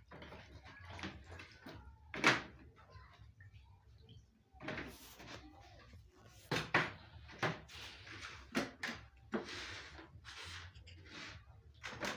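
Okra pods being washed by hand in a plastic basin of water, with splashing and a run of knocks and clatters as the basin and plastic bowls are handled on a wooden table; the sharpest knock comes about two seconds in.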